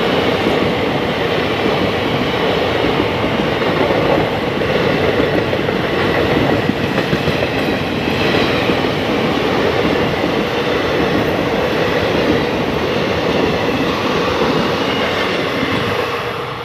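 Passenger coaches of the Amaravati Express rushing past at speed close by: a loud, steady rumble and rattle of wheels on the rails, dropping off near the end as the last coach goes by.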